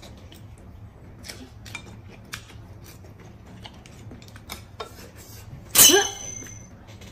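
Eating noises at a table: light clicks of chopsticks against porcelain bowls, and one loud, short slurp of noodles about six seconds in.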